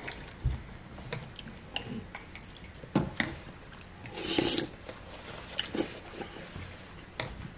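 Quiet eating sounds: scattered small clicks of a wooden spoon in a paper soup cup, and chewing. There is a short rustle a little past four seconds in, as a paper napkin is handled.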